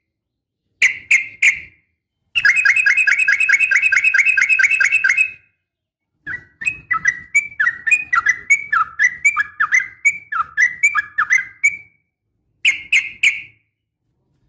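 Yellow-vented bulbul (trucukan) calls, billed as a female calling a male. They come in separate phrases: three sharp notes, then a fast, even chattering run of about six notes a second, then a long string of down-slurred whistled notes, and three sharp notes near the end.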